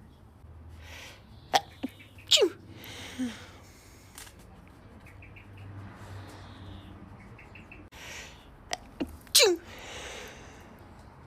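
A woman sneezing twice, about seven seconds apart. Each sneeze opens with a couple of short sharp catches, then a loud sharp burst that falls steeply in pitch, trailing off into a breathy exhale.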